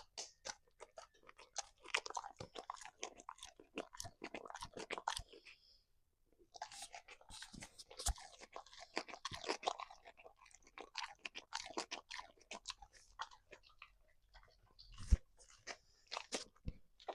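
A dog crunching and chewing a piece of hard, crunchy food in quick, crisp bites, with a short pause about six seconds in.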